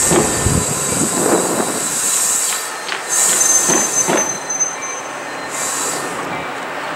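Metra bilevel commuter coaches rolling past on steel rails, wheels clacking over rail joints, with several bouts of high-pitched wheel squeal. The low rumble thins out partway through as the cars draw away.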